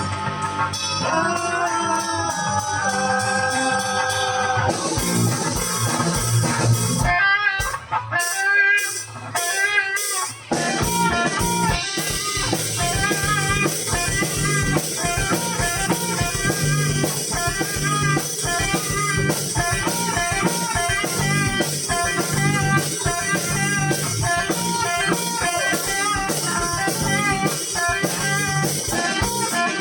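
Live rock band playing an instrumental passage on electric guitar and drum kit, no vocals. Held guitar notes open it, the music breaks off briefly a few times about eight to ten seconds in, then the band settles into a steady driving groove.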